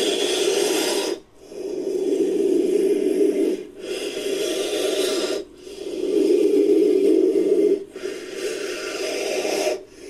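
Designed creature sound effect for a shelled snake monster: slow, raspy breathing in five long strokes of about two seconds each, separated by short gaps, with every other stroke brighter and hissier.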